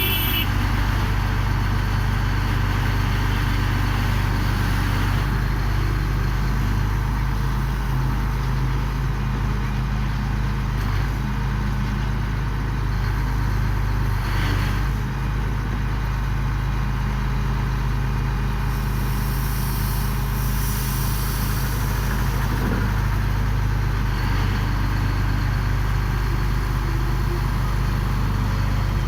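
Engine of a GD 45 horizontal directional drilling rig running steadily at a constant pitch.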